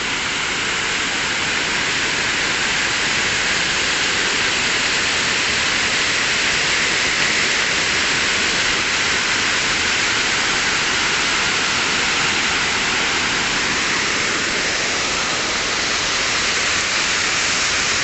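Waterfall rushing steadily, water pouring over rocks.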